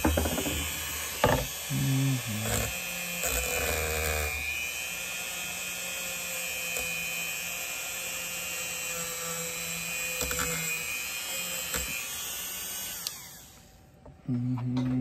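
Handheld rotary tool with a small wire wheel running at a steady high whine against the brass bolster of a folding knife. There are a few knocks in the first few seconds, and the motor winds down near the end.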